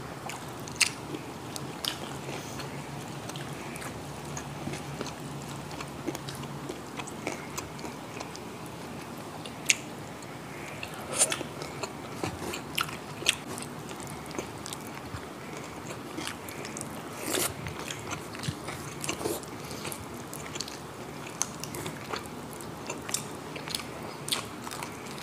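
Close-up chewing and biting of crispy deep-fried pork knuckle, with scattered sharp crunches of the fried skin and wet mouth sounds.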